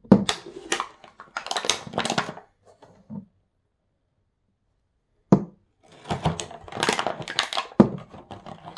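Glass nail polish bottles being handled and set down on a table: clinks and knocks, a sharp single knock about five seconds in, then a run of rapid clicking and clattering.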